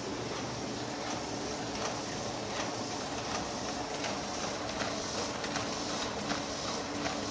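AB Dick 9810 mini offset printing press running: a steady mechanical whir with a regular clack about every three-quarters of a second.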